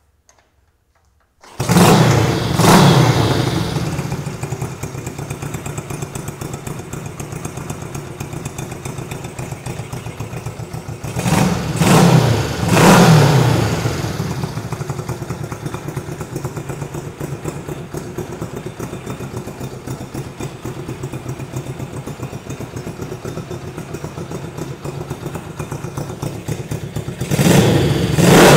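1964 Honda 305 race bike's parallel-twin engine starting easily about a second and a half in and revved a couple of times, then idling steadily. It gets short bursts of revs about halfway through and again at the end.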